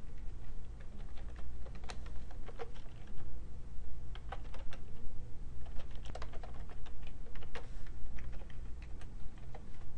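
Typing on a computer keyboard: irregular runs of key clicks, some in quick flurries, over a low steady hum.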